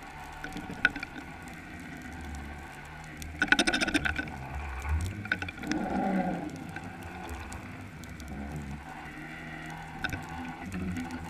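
Underwater sound through a camera housing lowered on a bottom-fishing rig: a steady low rumble with water noise, scattered clicks and knocks, a quick rattle of clicks about three and a half seconds in and a short warbling sound about six seconds in.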